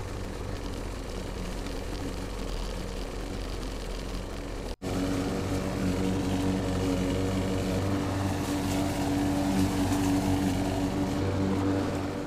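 Lawn mower running steadily with an even engine drone. It cuts out for an instant about five seconds in and comes back louder.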